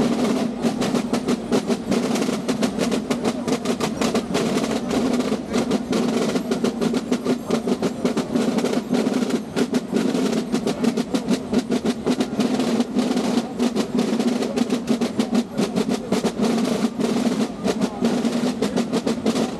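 Carnival drums beating a fast, unbroken rolling rhythm of dense sharp strokes over a steady low hum of sound.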